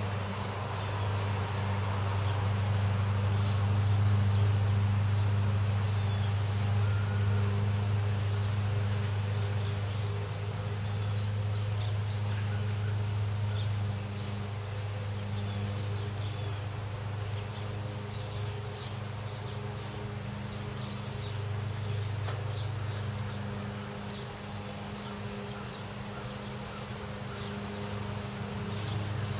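Car traffic on a neighbourhood street: a steady low engine hum that is loudest in the first half and swells again near the end, with faint short high chirps scattered throughout.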